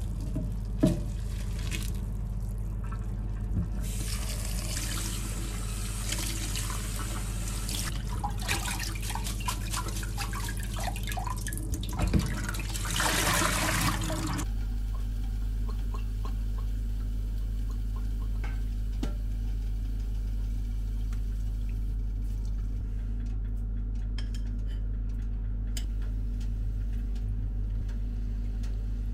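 Hot noodle cooking water poured from a steel pot through a metal mesh strainer into a stainless steel sink, splashing, building to its strongest just before it cuts off about fourteen seconds in.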